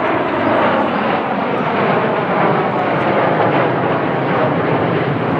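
Steady jet-engine noise from the Red Arrows' BAE Hawk jets flying their aerobatic display.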